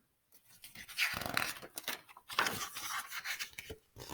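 Breathy panting in three rough bursts of about a second each, the first made of rapid short breaths.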